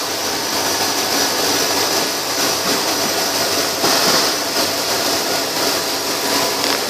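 2006 Chevy Avalanche's 5.3-litre V8 running steadily with the four-speed automatic in drive, a steady hiss over a low engine hum.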